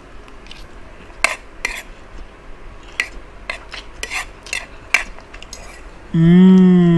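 Metal fork and spoon clinking and scraping against a ceramic plate of fried noodles, in scattered sharp clicks. About six seconds in, a loud drawn-out pitched sound effect begins and slowly falls in pitch.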